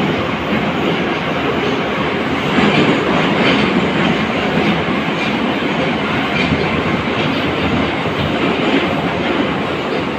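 81-541.2 metro car running at speed through a tunnel, heard from inside the passenger saloon: a steady loud rumble and rail noise from the wheels, swelling slightly about three seconds in.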